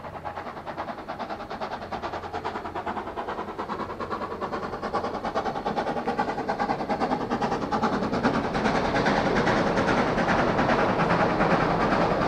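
Queensland Rail BB18¼ class steam locomotive 1079 working toward the camera: a rapid, regular beat of exhaust chuffs growing steadily louder as it approaches.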